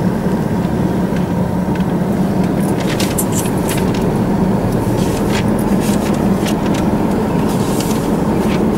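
Steady road and engine noise of a moving car heard from inside the cabin, with a low, even hum. A few brief clicks come through now and then.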